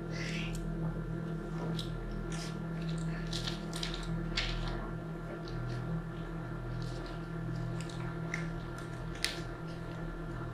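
Scattered small clicks and rustles from a small plastic pepper spray canister being turned over in the hands, over a steady low hum.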